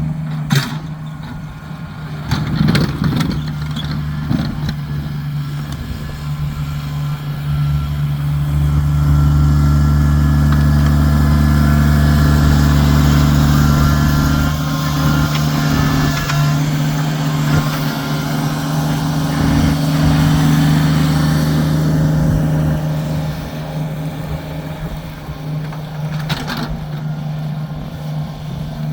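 Kubota tractor engine running steadily, with the engine note growing louder and heavier for about six seconds from around eight seconds in, then easing back. A few short knocks are heard near the start and near the end.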